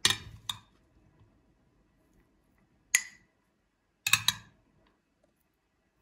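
A serving utensil clinking against a ceramic salad bowl as salad is served into it: two clinks at the start, a single one about three seconds in, and a quick cluster of clinks about four seconds in.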